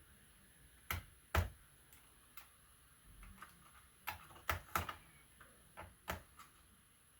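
Scattered light clicks and taps of a screwdriver and small screws against a laptop's plastic casing during disassembly, about ten in all, with a cluster of several about four to five seconds in.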